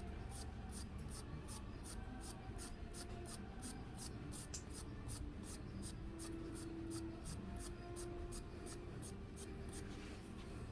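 Faint rhythmic scraping strokes by hand, about three a second, like a file or sandpaper worked back and forth on a part of the saw's brush motor.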